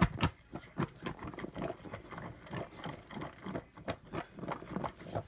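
Chopped salad of black beans, corn, peppers and chicken being shaken in a lidded bowl, the food thudding and rattling against the lid and sides in quick, repeated strokes several times a second.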